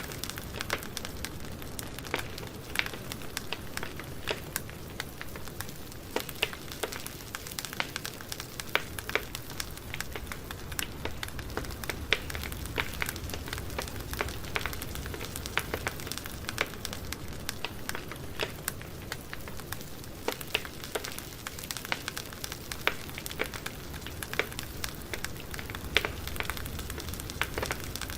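Wood campfire burning, with a steady low rush and many sharp irregular pops and crackles.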